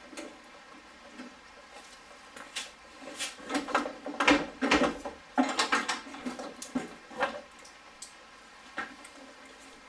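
VW Golf Mk3 front bumper being pulled forward off its mounts by hand, giving a run of clicks, knocks and rattles that starts a couple of seconds in and is loudest around the middle, with one last click near the end.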